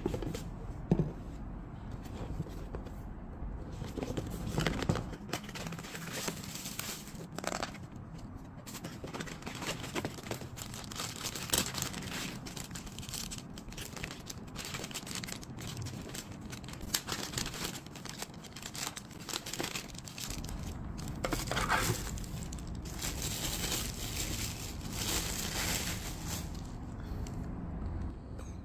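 Clear plastic packaging bags crinkling and rustling in the hands during unpacking, with irregular sharp crackles.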